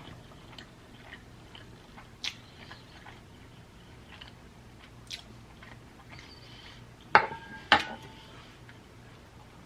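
Close-miked eating sounds: a person chewing a mouthful of Cincinnati-style chili spaghetti, with scattered small mouth clicks. About seven seconds in come two sharp clacks half a second apart, each with a short ring, from a utensil knocking against the dish or container.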